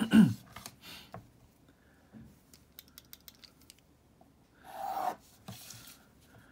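A clear plastic ruler being handled on a drawing desk, with a loud knock as it is picked up and set down, then a mechanical pencil scratching a straight line along its edge across paper about five seconds in, followed by a shorter scrape as the ruler is slid away.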